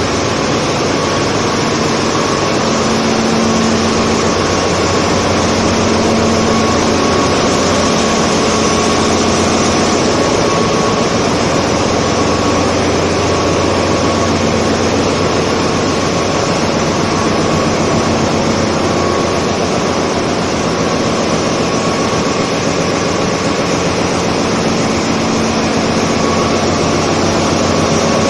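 Loud, steady din of a ship's engine room, with machinery running continuously and several steady hums under a dense rushing noise.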